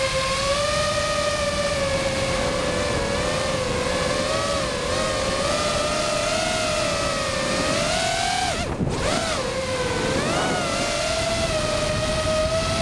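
Walkera F210 racing quadcopter's brushless motors and propellers whining, the pitch rising and falling with the throttle; about nine seconds in the whine drops sharply for a moment as the throttle is chopped, then climbs back.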